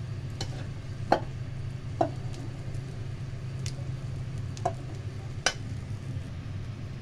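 Stir-fried vermicelli being tipped and scraped from a frying pan into a clay pot, with about six sharp knocks of utensil and pan rim against the pot, over a steady low hum.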